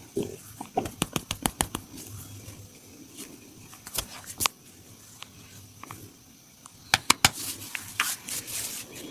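Hands tapping and slapping on a person's upper body during a massage: a quick run of sharp taps, a few single louder slaps, then a stretch of rubbing.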